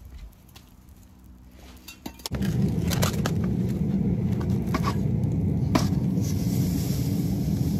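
Dry casting sand pouring out of a tipped steel drum into a metal tub: a steady rushing rumble that starts about two seconds in, with a few sharp knocks along the way.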